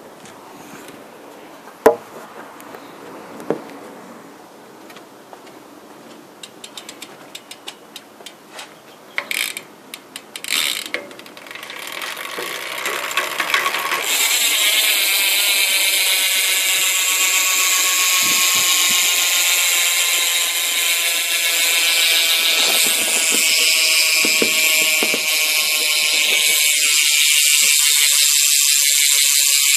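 Rear cassette hub of a BMX freewheeling as the back wheel is spun. A few clicks and slow ticking give way, about twelve to fourteen seconds in, to a loud, fast, steady ratcheting buzz of the pawls that runs on. The hub is pretty loud.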